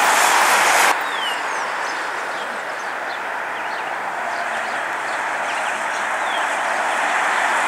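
Distant Airbus A320 jet engines running: a steady rushing noise that slowly grows louder, with small birds chirping over it. A louder rush cuts off abruptly about a second in.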